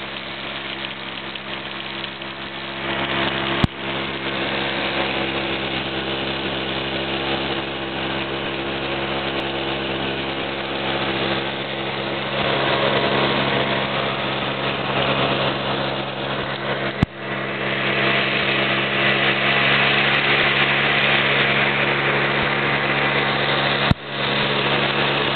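ATV engine running at a steady pace, a constant hum over a rushing noise that grows louder about two-thirds of the way through. Three sharp clicks break it, near the start, about halfway and near the end.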